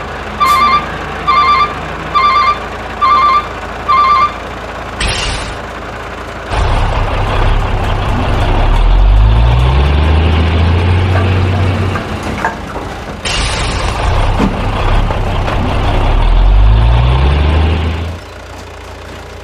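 A truck reversing alarm beeps about six times in the first four seconds. Then a heavy truck engine sound runs loudly, revving up twice with a rising pitch, and stops near the end.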